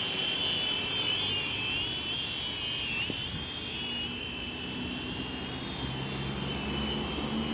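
Syma X25 Pro quadcopter hovering: a steady high propeller whine that wavers slightly in pitch as the motors correct against the wind, over a low wind rumble.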